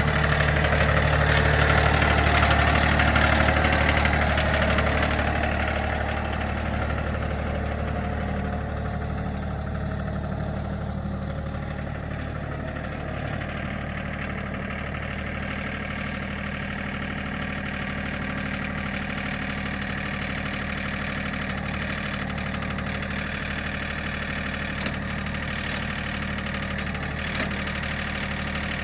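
Engine idling steadily, a little louder over the first few seconds.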